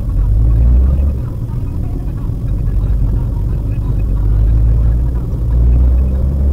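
Cabin road and engine rumble of a moving Maruti Suzuki WagonR: a steady low drone that swells and eases a few times.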